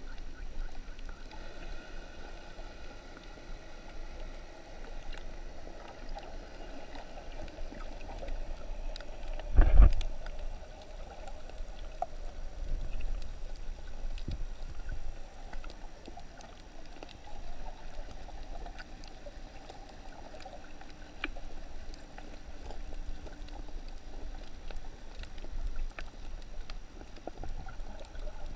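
Muffled underwater sound picked up by a GoPro in its waterproof housing: a steady low rush of moving water with scattered faint clicks, and one dull thump about ten seconds in.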